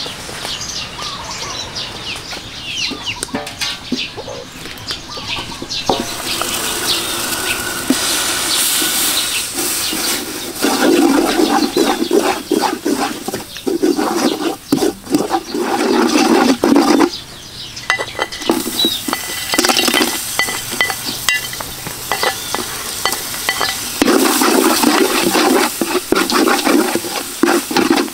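A wooden stirrer scraping and stirring a thick seasoning paste in a large aluminium pot over a fire, coming in bouts of loud scraping over a steady hiss of frying. Birds chirp in the first few seconds, before the stirring starts.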